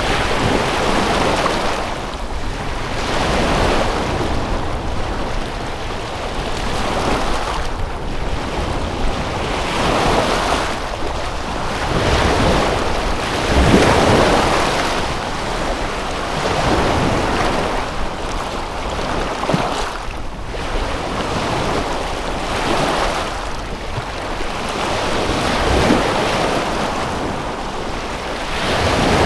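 Waves of Lake Titicaca washing onto the shore in a steady wash of water noise that swells and fades every couple of seconds.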